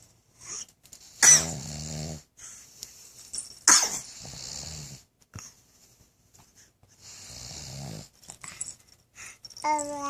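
A man snoring loudly in his sleep: rough, deep snores about a second in and about four seconds in, a softer one near seven seconds, with hissing breaths in between.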